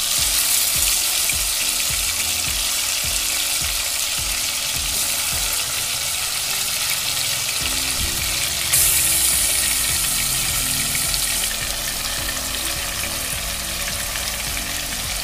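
Marinated chicken pieces sizzling as they shallow-fry in hot oil in an aluminium pot, a steady crackling hiss that gets louder for a few seconds about nine seconds in as more pieces go into the oil.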